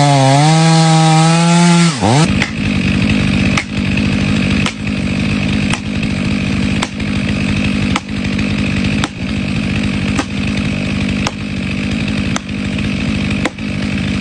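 Chainsaw cutting into a tree trunk. For about two seconds the engine's pitch swings up and down, then it settles into a steady, lower note as the saw works through the wood, with a short click about once a second.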